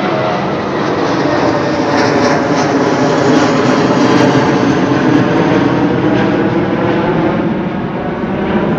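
Jet airliner passing low overhead: a loud engine roar that swells to its loudest about four seconds in, then slowly eases off.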